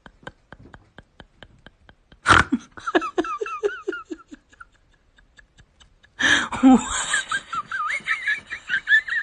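A person laughing in two bouts. About two seconds in, after a sharp click, comes a run of short 'ha' bursts, about four a second. From about six seconds in there is a longer, louder, higher-pitched fit of laughter.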